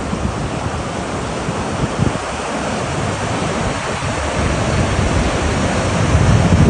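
Steady rush of floodwater, with wind gusting on the microphone as a low rumble that swells again near the end.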